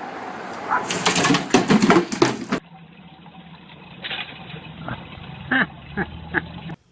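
A pet animal's short cries: a few brief calls in the second half, after a noisy jumble of sound.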